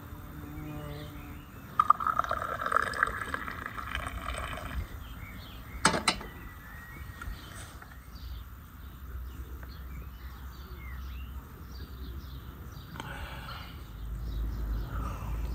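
A hot drink poured from a samovar into a glass mug for about three seconds, starting about two seconds in, then a sharp clink about six seconds in.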